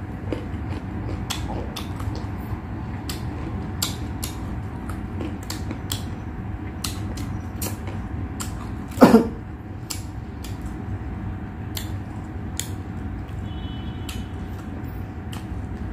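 A person eating with his hands: chewing and mouth clicks, with many short clicks and smacks over a steady low hum. About nine seconds in, one short loud sound slides down in pitch.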